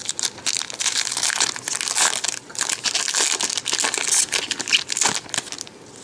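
Foil wrapper of a Yu-Gi-Oh booster pack crinkling as it is handled and torn open by hand, a dense crackle that eases off near the end.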